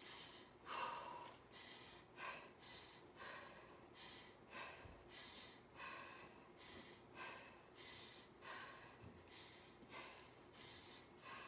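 A woman breathing hard and rhythmically while exercising, faint, with a breath about every second or so.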